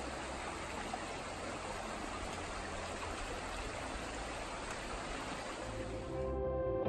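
Shallow mountain creek running over rocks, a steady rush and babble of water. About six seconds in it cuts off and gives way to soft music.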